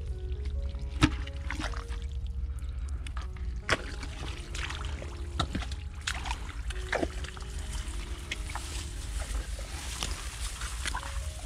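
Irregular splashing and sloshing in shallow muddy water, with a sharp knock about a second in and another near four seconds, over quiet background music.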